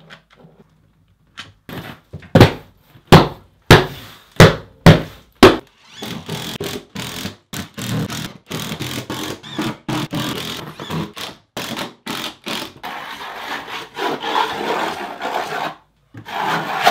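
Caulking gun's trigger squeezed about eight times, each pump a sharp clack. Then a cordless driver runs screws through the foam board into the wooden studs, whirring and rattling for about ten seconds.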